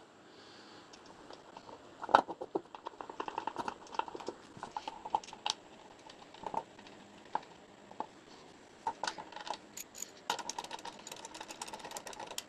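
Irregular small metal clicks and rattles of bolts being handled and screwed in to fasten a pool pump's motor mount plate, with clusters of clicks about two seconds in and again near the end.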